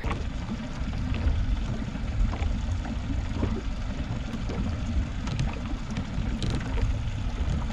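Wind rumbling on the microphone over open water, low and steady, with a few faint ticks.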